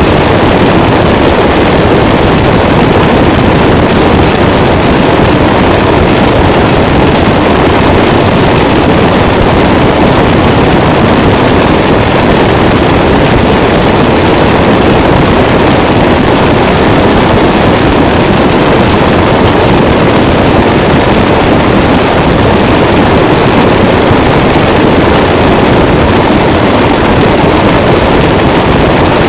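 Harsh noise wall: a dense, unchanging wall of distorted static, heaviest in the low middle, held very loud without a break.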